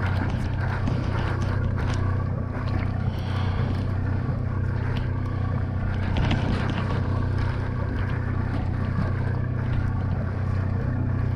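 A boat's engine running steadily with a low, even hum, with scattered light clicks and knocks over it.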